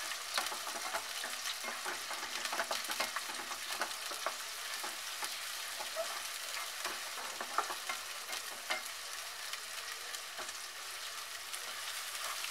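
Sliced onions sizzling in hot mustard oil in a kadhai, frying to a light pink, with a spatula stirring and scraping them around the pan in many light strokes.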